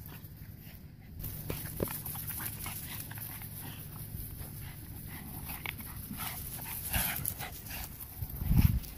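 Small dogs playing with a stick on grass: dog noises and scattered small clicks over a steady low rumble, with one loud low thump near the end.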